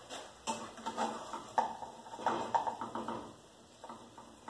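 A metal utensil scraping and knocking against a frying pan: a run of short, irregular clatters, busiest in the first three seconds and thinning out near the end.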